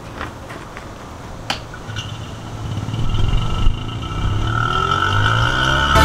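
Refrigeration vacuum pump being started: a click, then its motor running up, rising in pitch and growing louder into a steady whine as it begins evacuating the new refrigerant lines.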